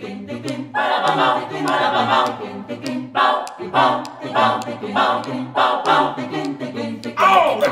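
Mixed choir of men's and women's voices singing a cappella in rhythmic sung phrases, with no instruments.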